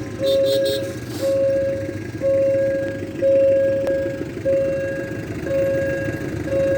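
Railway level-crossing warning bell ringing, one ring about every second, each ring a steady tone that starts sharply and fades. A low steady rumble runs underneath.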